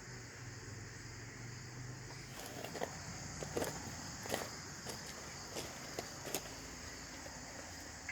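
Steady high chirring of crickets in the background. Light clicks and knocks sound now and then from about two seconds in until about six seconds in, with a low hum only during the first couple of seconds.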